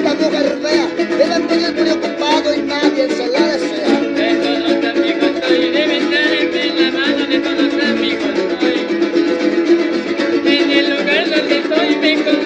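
Son jarocho music from Veracruz played on plucked strings, a harp with small strummed guitars, in an instrumental passage.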